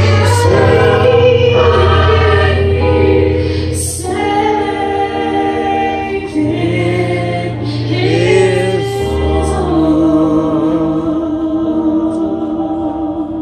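Gospel choir singing in harmony with electric keyboard accompaniment, the keyboard holding steady low bass notes. The voices settle on a long held note with vibrato that fades near the end.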